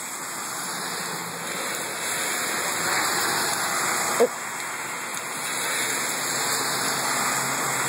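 Heavy rain pouring onto a flooded road, a steady hiss that grows louder over the first couple of seconds and then holds. A brief sharp sound cuts through it about four seconds in.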